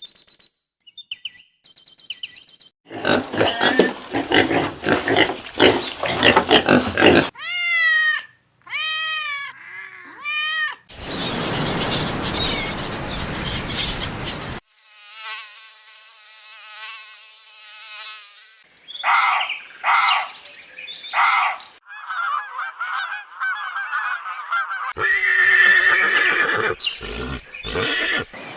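A run of different animal calls spliced one after another with abrupt cuts. It goes from high chirps to a rough noisy call, then a few arched squealing calls, further noisy and pitched calls, and a loud cry near the end.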